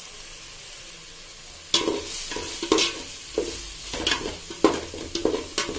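Steel slotted spoon stirring and scraping a thick onion-tomato biryani masala frying in a metal pot, over a steady sizzle. Quick scraping strokes of the spoon against the pot start a little under two seconds in and repeat about three times a second.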